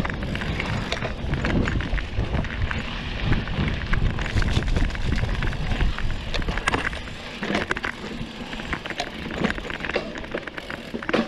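Specialized Rockhopper aluminium hardtail mountain bike ridden over a dirt trail: its tyres run over dirt and roots, with frequent clicks and rattles over the bumps and a steady low rumble underneath.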